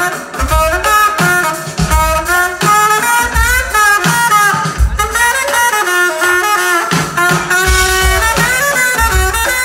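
Live brass band music: a saxophone plays a moving lead melody over low, deep drum hits that come every second or so.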